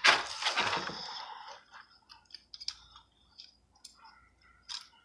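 Plastic Transformers action figure being handled: a crinkly rustle that fades over the first second or so, then scattered small clicks of plastic parts being moved.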